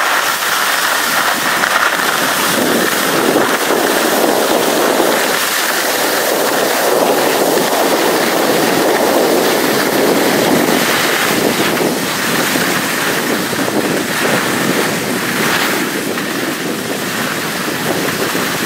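Skis sliding downhill over snow with wind rushing across the microphone: a steady rough hiss that swells and eases a little.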